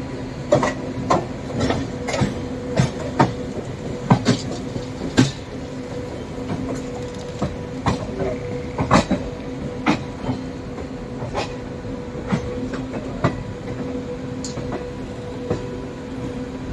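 Wheels of a 17031 Mumbai Hyderabad Express passenger coach clacking over the track at uneven intervals, over a steady hum.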